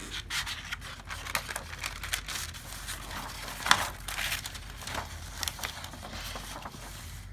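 Sheets of paper rustling and crinkling as tracing paper is slid under a drawing and the drawing is lifted and smoothed back down over it. The crackles come irregularly, with one louder crinkle a little past the middle.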